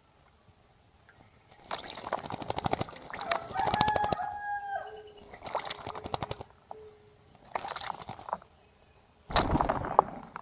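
A rooster crowing, with one long held call near the middle, among several short bursts of rapid rattling sound, the loudest near the end.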